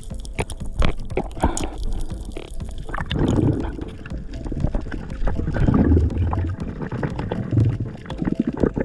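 Water sloshing and gurgling in uneven swells, with scattered clicks and knocks.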